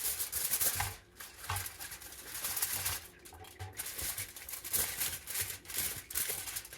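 Aluminium foil crinkling and rustling in irregular bursts as it is handled and pressed over a baking dish for the oven.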